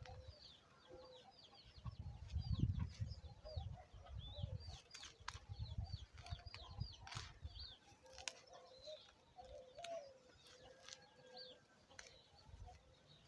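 Chickens clucking amid many short, high chirps, with a low rumble from about two to seven seconds in and a few sharp clicks.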